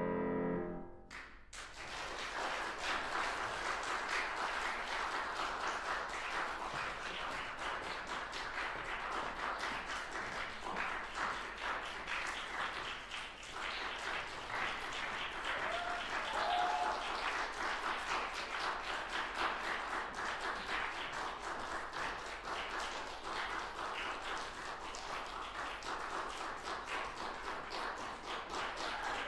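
The final piano chord dies away in the first second, then an audience applauds steadily.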